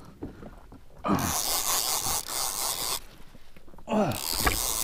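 A person's heavy, strained breathing from the effort of reeling up a fish from deep water. There are two long exhales, one about a second in and one near the end, each starting with a low groan that falls in pitch, with short quieter gaps between them.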